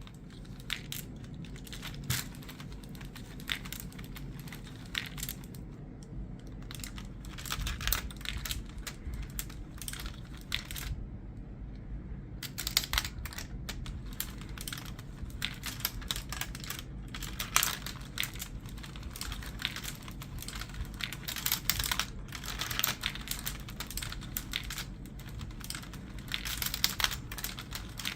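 UGears wooden chain hoist marble run in action: glass marbles and wooden parts making a continuous irregular clatter of small clicks, easing briefly about eleven seconds in.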